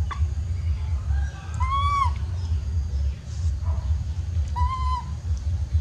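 Baby monkey giving two short, high, arching calls about three seconds apart, calling for its mother.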